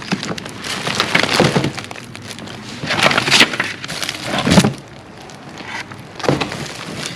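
Rummaging through a box of packed Christmas decorations: paper and bags rustling and crinkling, with items knocking and clattering against each other, loudest a little past three seconds in and again about four and a half seconds in.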